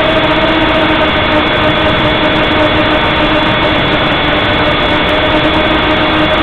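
Heli-Max 1Si quadcopter's electric motors and propellers running in flight, a loud steady whine and hum heard close-up through the drone's own onboard camera microphone.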